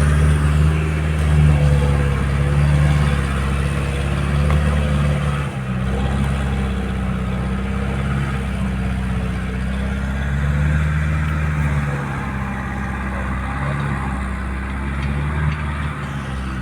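Diesel engine of a backhoe loader running steadily, with its note shifting a few times.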